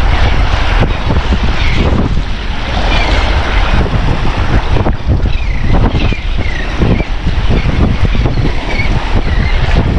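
Strong wind buffeting the microphone over a steady rush of water and surf, with a few faint, short, high chirps scattered through.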